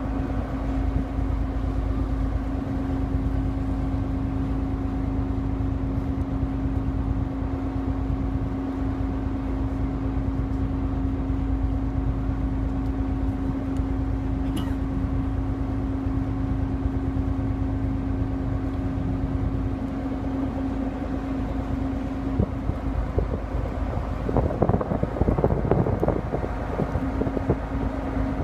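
A boat's engine running at a steady speed, a deep rumble with an unchanging hum, while wind buffets the microphone. The noise gets rougher near the end.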